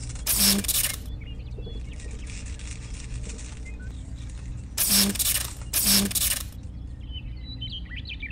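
Soldering iron sizzling on a wire joint: two short hissing bursts about a second apart, and the same pair again about five seconds in, over a low steady hum.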